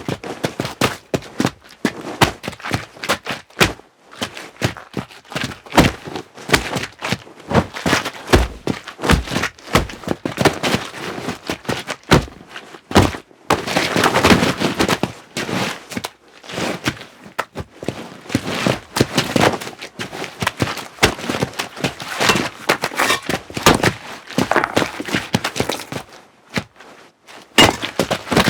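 Foley sound effects in quick succession: many sharp knocks, hits and clatters, with denser rustling, scraping stretches about halfway through and again near the end.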